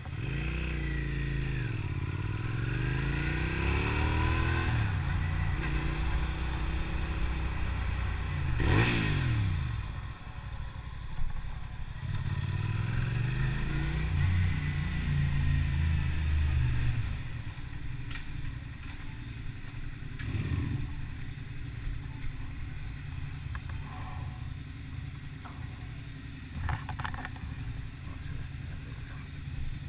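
Motorcycle engine under way, its pitch climbing and dropping several times as it accelerates and shifts, then easing off to a lower, quieter run about two-thirds of the way through.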